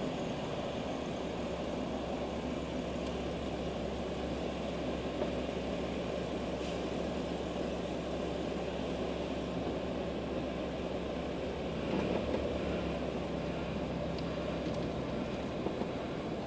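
Car engine and cabin noise heard from inside a car creeping forward in a queue: a steady low hum, briefly louder about twelve seconds in.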